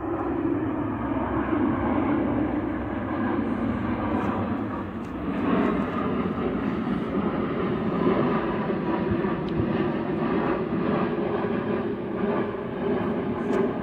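Twin-engine jet airliner flying overhead, its engines a steady low rumble.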